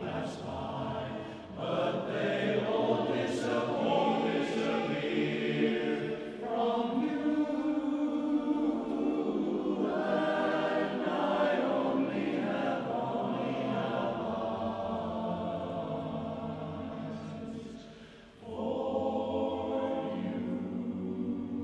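Men's barbershop chorus singing a cappella in close harmony, holding long chords. The sound dips briefly about a second and a half in and again near 18 seconds between phrases, then the full chorus comes back in.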